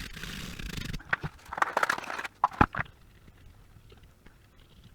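Toothbrush scrubbing a circuit board, a steady scratchy hiss for about the first second, followed by a quick run of knocks and clicks as small tools and parts are handled on the bench.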